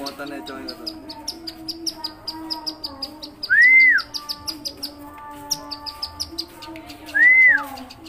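Bar-winged prinia (ciblek) singing a fast, rattling run of high notes, about eight a second, with a brief break about five seconds in. Twice a loud whistle rises and falls over half a second, about three and a half seconds in and again near the end.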